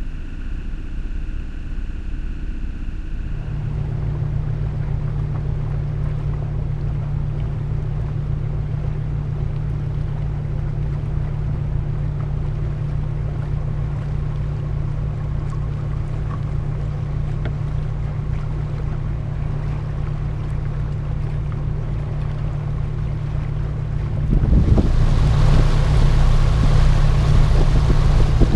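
Motorboat engine running steadily with a low, even drone. About 24 seconds in it gets louder and a broad rush of wind and water joins it, as the boat picks up speed.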